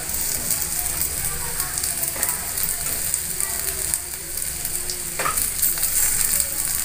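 Hot oil sizzling and crackling in a steel kadhai as crumbled boiled potatoes go in on top of the fried cumin, garlic, ginger and green chilli, with a steel spatula scraping and stirring in the pan. A sharper scrape comes about five seconds in.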